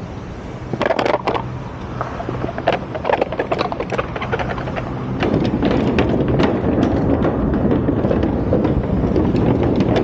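Riding noise from a fixed-gear bicycle on the road: a series of clicks and knocks over a steady low hum, then a louder rushing of wind and tyre noise on the camera microphone from about five seconds in.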